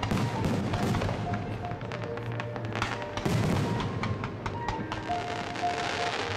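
Fireworks bursting and crackling in quick succession, with music playing alongside.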